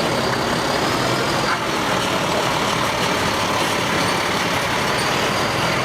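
Heavy emergency vehicle's engine running steadily at a low idle-like pace.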